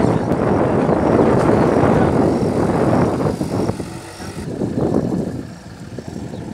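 JCB backhoe loader's diesel engine running as the machine drives along, loud at first and dropping off from about four seconds in.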